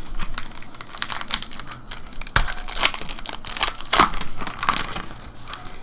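Trading-card pack wrapper being torn open and crinkled by hand, a run of sharp crackles with the loudest cracks in the second half.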